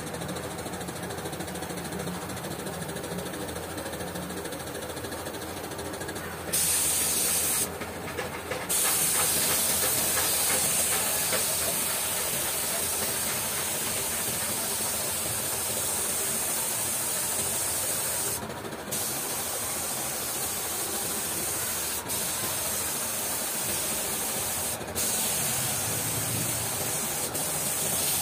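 Compressed-air paint spray gun hissing as it sprays paint, starting a few seconds in and stopping briefly a few times. A steady motor hum runs underneath.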